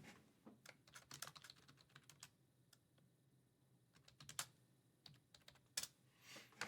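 Faint, scattered light clicks and taps, several in quick succession at first, then a few isolated ones after a quiet spell.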